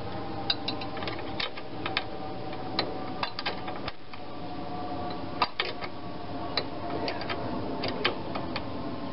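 Irregular metallic clicks and clinks of a hand tool working a bolt on a Tecumseh lawn mower engine as it is being snugged up, over a faint steady hum.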